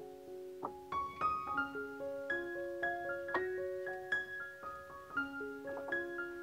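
Background piano music: a melody of separate notes over held chords.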